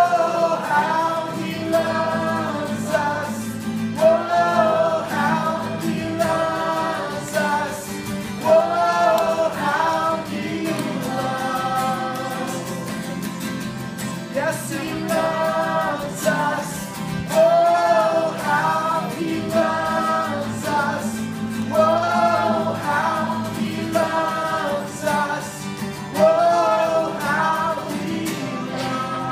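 A woman and two men singing a song together, in sung phrases a second or two long, to two strummed acoustic guitars.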